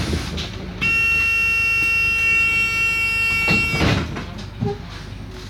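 Bus door warning buzzer: one steady buzzing tone about three seconds long that cuts off suddenly, with a short hiss of air near its end as the doors close, over the idling bus.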